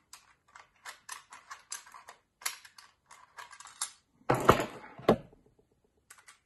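Quick light metallic clicks and ticks as a steel lever mortise lock case is handled and a screwdriver is set to its screws to take it apart. A louder clatter of two knocks comes about four and a half to five seconds in.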